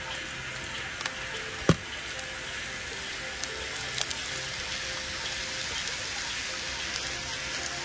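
A steady hiss, like sizzling or running water, with one sharp knock a little under two seconds in and faint background music underneath.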